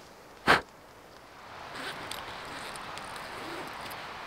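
A single short breathy whoosh about half a second in. From about a second and a half in, a steady soft hiss of outdoor woodland ambience follows, with faint scattered ticks.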